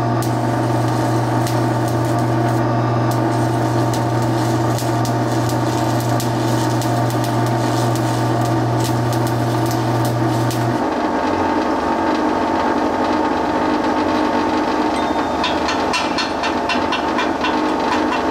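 DC stick-welding arc crackling and humming as a Certanium 889 rod runs a bead on cast iron, with the stick welder's cooling fan making a loud racket behind it, fouled by mud dauber nests built on the fan. The arc stops about eleven seconds in while the fan keeps running, and near the end comes a run of quick, light metal taps.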